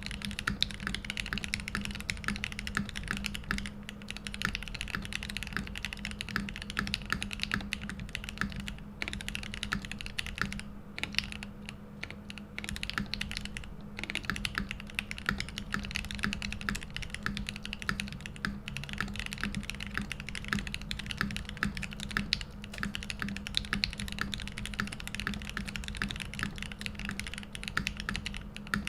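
Continuous fast typing on a Mode80 custom mechanical keyboard: lubed Gateron Oil King linear switches on a brass plate with case and plate foam, under OTC Modo Light keycaps, giving a deep, thocky keystroke sound. The typing thins out briefly about halfway through, then resumes at full speed.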